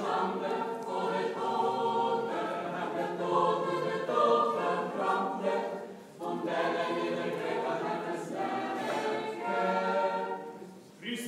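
Church choir singing Orthodox liturgical chant a cappella, in two long phrases with a brief break about six seconds in.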